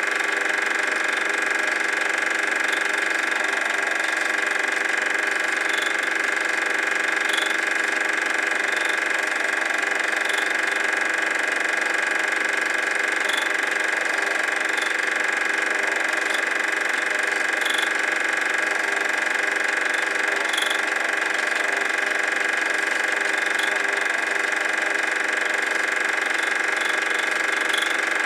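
Super 8 film projector running: a steady mechanical whirr from its motor and film transport, with a faint click every couple of seconds.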